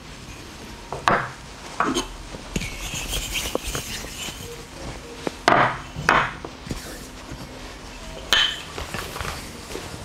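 Small bowls and pots clattering and clinking as they are picked up and set down on a wooden counter: a handful of sharp knocks, the one near the end ringing briefly.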